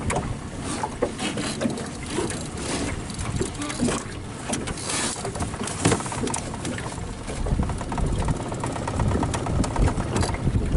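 Wind buffeting the microphone and lake water slapping against an aluminium boat, with rapid clicking from a spinning reel being cranked as a hooked pike is reeled in. The low wind rumble grows stronger in the second half.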